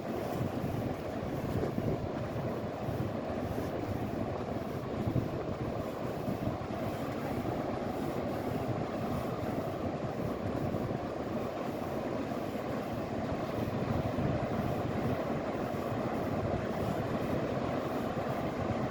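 Steady, low roar of ocean surf and wind, even throughout with no distinct events.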